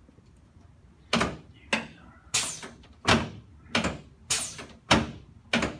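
A rapid series of about eight sharp thumps, starting about a second in and coming roughly twice a second, from quick chiropractic adjustment thrusts to the shoulder joints, clavicles and rib-to-sternum joints.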